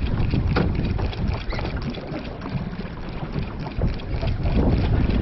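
Wind buffeting the microphone aboard a boat at sea, a steady low rumble with a few short knocks.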